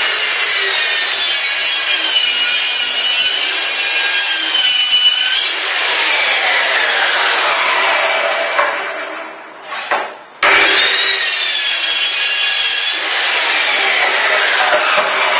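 Festool plunge-cut circular saw running along its guide rail, cutting through a parquet panel with a high whine. About ten seconds in the saw stops and is started again at once, and the second run slows and dies away near the end.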